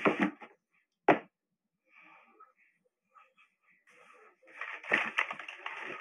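One sharp knock about a second in. From about four and a half seconds, rustling and light knocking from something being handled close to the phone's microphone.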